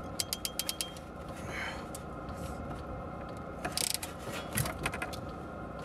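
Ratcheting PEX crimping tool clicking as its handles are squeezed to clamp a ring onto a brass fitting on PEX water line. A quick run of clicks comes near the start, and a denser cluster of clicks and rattling comes a little past halfway.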